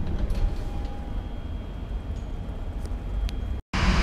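Steady low background rumble inside an airport terminal, with a faint hum and a few light clicks. It breaks off abruptly near the end at a cut, then comes back louder.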